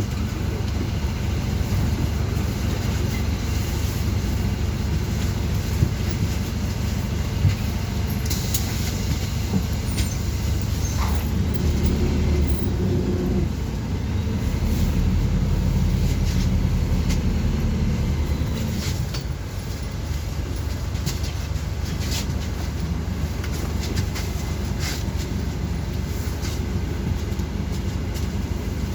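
A city bus in motion, heard on board: steady low engine and road rumble with scattered rattles and clicks. About halfway through, the engine note swells for several seconds and then drops off.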